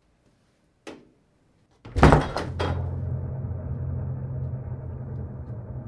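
A single sharp knock, then about a second later a loud crash of several quick impacts, after which a steady low rumble sets in and keeps going.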